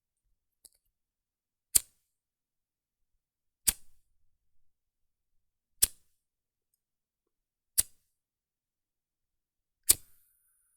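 Cigarette lighter struck five times, each strike a sharp click, about two seconds apart. After the last strike a thin, high hiss starts as the lighter ignites.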